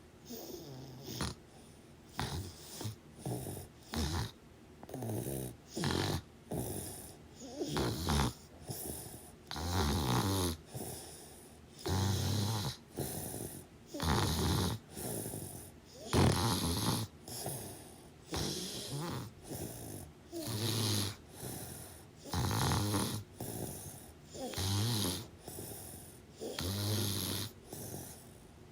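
A sleeper snoring loudly, with a rasping, buzzing snore on the breath and a softer breath between, repeating regularly about once every two seconds.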